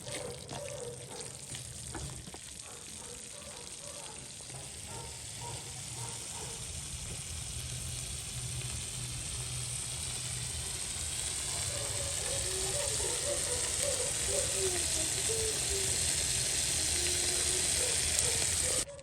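Food frying in hot oil: a steady sizzle that grows gradually louder and stops abruptly near the end.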